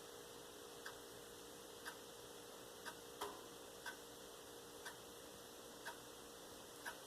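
Faint clock ticking once a second, with one extra click a little after three seconds in, over a faint steady hum.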